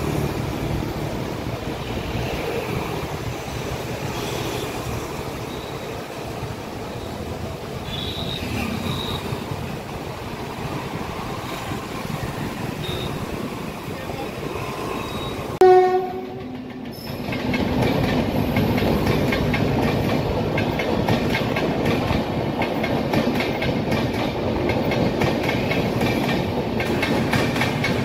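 Indian Railways passenger coaches rolling past with a steady rumble. About halfway through comes one short, loud locomotive horn blast. After it a second express, the Tejas Express behind a WAP-7 electric locomotive, runs past with a rapid clickety-clack of wheels over rail joints.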